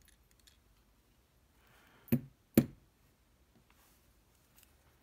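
Two sharp knocks about half a second apart, a hard object striking the workbench while a lock is being taken apart. Faint small clicks of tiny lock parts come before them.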